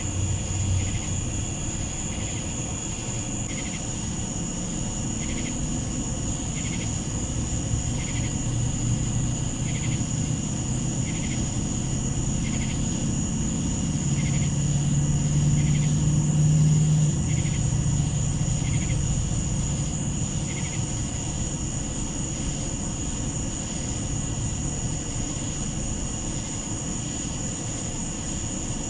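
Night insects make a steady, high-pitched drone, with a short call repeating about every second and a quarter until about two-thirds of the way through. A distant engine rumble, from a vehicle or aircraft, swells to its loudest around the middle, then fades.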